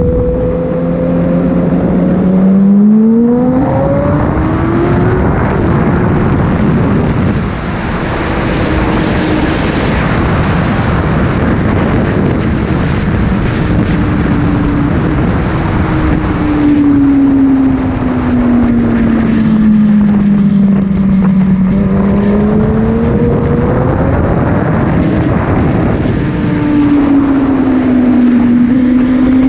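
Kawasaki ZX-6R 636's inline-four engine under way, heard over heavy wind rush. The revs rise about three seconds in, hold steady, sink slowly past the middle, then climb again near the end.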